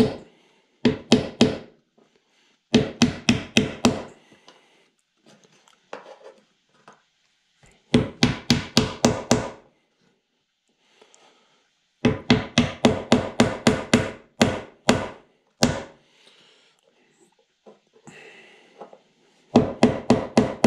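Steel claw hammer driving small wooden dowel rungs into the holes of a wooden ladder rail. The blows come in several quick runs of about five a second, with short pauses between.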